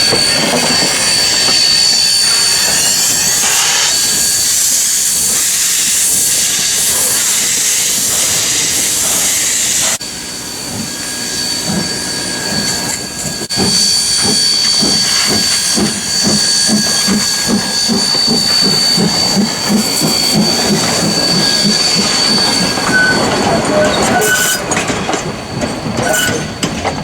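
Steam locomotive A428 hissing steam, with a steady high-pitched tone over the hiss. After a break partway through, a regular beat of about two a second comes in under the hiss as the locomotive works.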